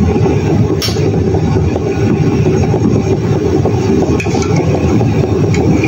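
A loud, steady low rumble with a rattling texture, with a light clink about a second in.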